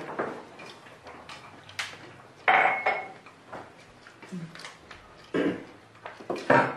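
Ceramic plates and bowls clinking and knocking on a dining table as people eat. There are several separate knocks, and the loudest, about two and a half seconds in, rings briefly.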